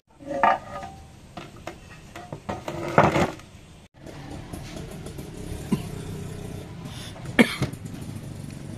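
Workshop handling sounds of a stripped engine: scattered clicks and knocks, with a louder noisy burst about three seconds in, then a steady background noise with a few sharp clicks.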